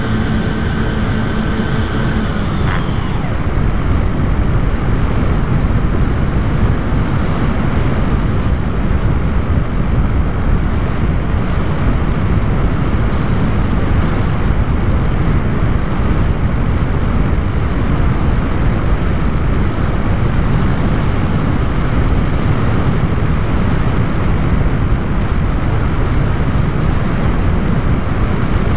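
Wind rushing over the onboard camera of a flying radio-controlled plane, with a steady motor whine underneath that stops about three seconds in. After that only the even wind rush remains as the plane flies on.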